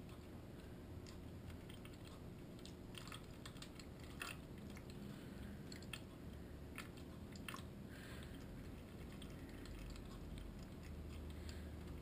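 Kitten pawing at a Drinkwell Platinum pet water fountain: scattered light clicks and taps, most of them between about three and eight seconds in. They sit over the fountain pump's faint steady hum.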